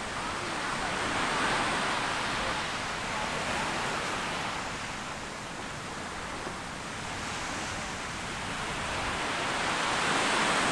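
Small ocean waves breaking and washing up a sandy beach, swelling twice: once about a second in and again near the end.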